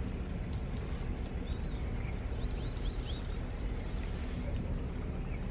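Outdoor ambience: a steady low rumble with a few faint, short high chirps around the middle.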